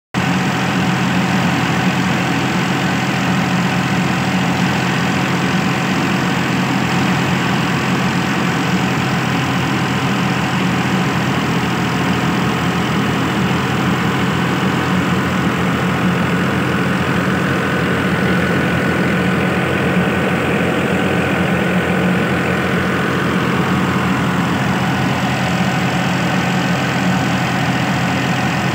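Tractor engine running steadily at a constant speed as it powers a grain thresher, with the thresher's machinery turning along with it.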